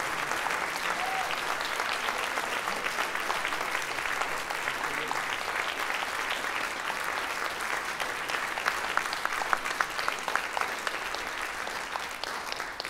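Audience applauding, the clapping thinning into more separate claps toward the end.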